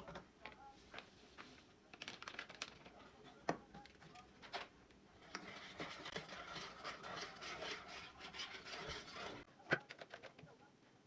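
Close-up handling sounds: scratching and rubbing with scattered sharp clicks, a denser run of scratching through the middle and two louder clicks, one about three and a half seconds in and one near the end.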